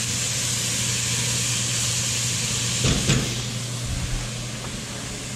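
Chopped zucchini, squash and eggplant sizzling in oil in an enameled cast-iron Dutch oven, a steady hiss over a low hum. A short knock comes about three seconds in, and the sizzle is a little quieter after it.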